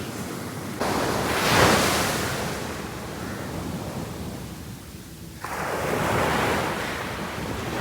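Sea waves breaking and washing up the beach, with wind buffeting the microphone; a wave surges in about a second in and another a little past the halfway point.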